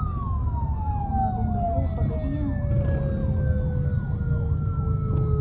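Emergency vehicle siren giving one long wail that slowly falls in pitch, as if winding down, over a steady low rumble of engine and road noise.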